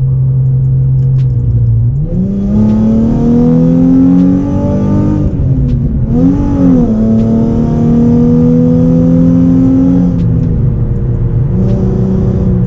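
Nissan 350Z's VQ35 V6 with aftermarket ceramic headers, test pipes, Y-pipe and single-exit exhaust, heard loud from inside the cabin as the car accelerates. The engine note holds steady, climbs for a few seconds, falls about five seconds in, rises and falls briefly, then pulls steadily upward before dropping again about ten seconds in.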